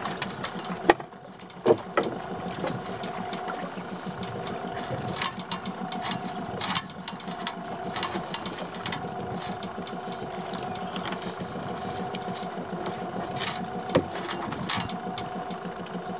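Spinning reel being cranked steadily as a bass is played on a bent rod, a fast mechanical whirr of the reel's gearing. A few sharp knocks, one about a second in, another shortly after, and one near the end, are the loudest sounds.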